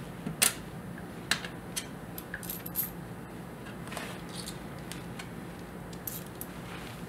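Small stainless-steel parts, a bolt and collet cones, clicking and tapping lightly as they are picked up and slid together by hand; about seven light clicks scattered through, over a faint steady hum.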